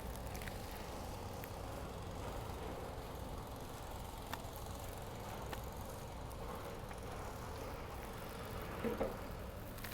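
Steady low background rumble with a few faint clicks and a light knock about nine seconds in.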